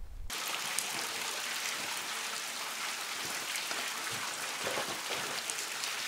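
Meltwater dripping and splashing from glacier ice: a dense patter of drops over a steady hiss, starting sharply just after the start.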